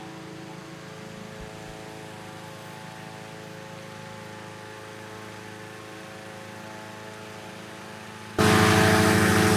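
An engine running with a steady hum. Near the end, a much louder engine rumble cuts in suddenly and carries on.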